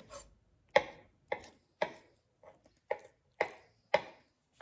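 Kitchen knife chopping a boiled egg on a wooden cutting board: a series of sharp knocks of the blade against the board, about two a second.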